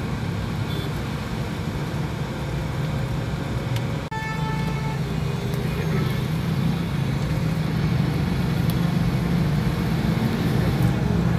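Steady engine and road hum inside a car creeping through traffic. About four seconds in, after a momentary dropout, a vehicle horn beeps once for just under a second.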